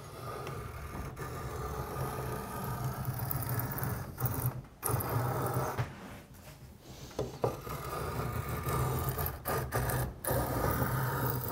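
A draw knife shaving a wooden paddle blank in several long pull strokes, each a rough scraping cut, with short pauses between them. The knife is driven hard enough that the worktable shifts.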